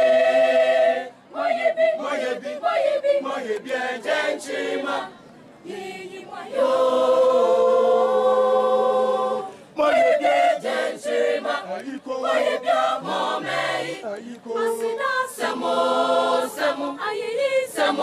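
A mixed choir of young voices singing an unaccompanied song in parts, in short phrases with brief pauses between them. About halfway through they hold one long chord.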